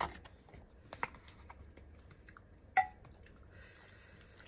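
Tableware clinking against dishes: a few light taps, the loudest about three seconds in with a short ring after it.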